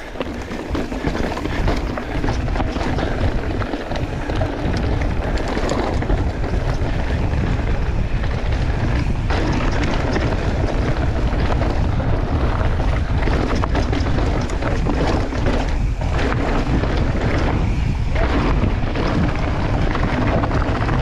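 Wind buffeting an action camera's microphone as a mountain bike rides down a dirt trail, with tyre noise and frequent small knocks and rattles from the bike over rough ground.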